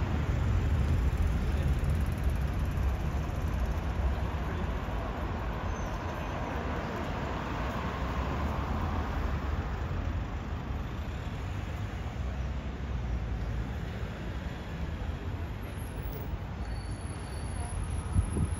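City street traffic: cars and taxis running along the road in a steady rumble, with one passing vehicle swelling louder and fading around the middle.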